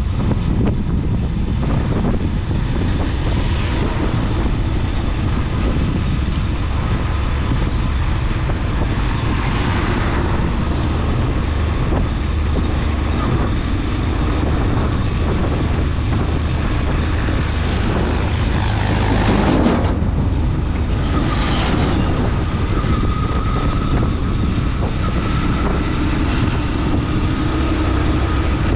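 Steady low rumble of a vehicle travelling along the road, with wind buffeting the microphone; the noise swells briefly about ten seconds in and again around twenty seconds.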